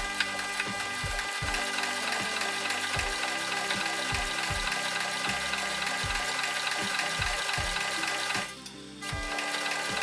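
A machine running steadily, with a whirring, mechanical noise holding many fixed tones and a regular low thump about twice a second. It cuts out briefly near the end and starts again.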